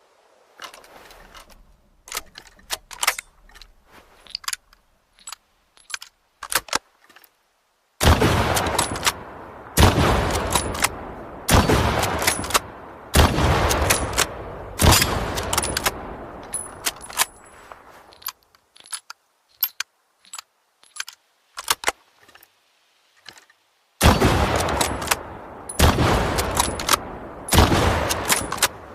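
Mosin–Nagant bolt-action rifle sound effect: sharp metallic clicks of the action being worked, then a run of about six loud rifle shots roughly every one and a half seconds, each with a ringing tail. More clicks follow, and a second run of shots starts near the end.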